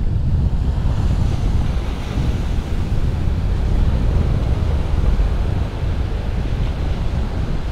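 Wind buffeting the microphone, a heavy low rumble over the wash of small waves breaking and running up the sand.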